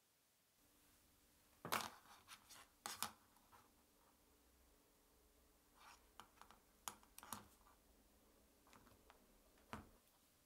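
Hand wire stripper working a thin black cable: several sharp clicks and snips in short clusters, with soft scraping between them.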